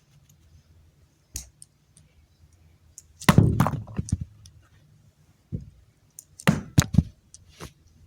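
Handling noise of small hard objects: a light knock, then a louder clattering knock about three seconds in, and a few sharp clicks or taps near the end.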